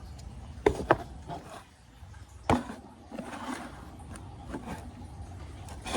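A few sharp clicks and knocks with some scraping and rubbing: tools and parts being handled while work starts on the engine's accessory belt.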